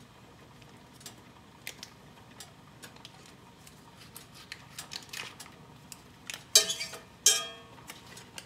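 Table knife working a stick of butter in its paper wrapper: small clicks and rustles. Then two sharp metallic clinks with a short ring, about two-thirds of the way through, as the knife knocks against the cast iron skillet, dropping butter into the pan.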